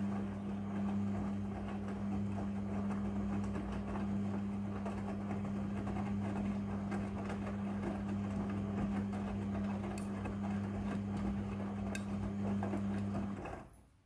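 Midea front-loading washing machine running its drum fast with wet laundry, the motor giving a steady low hum over the noise of the load. The motor cuts out suddenly shortly before the end and the drum stops.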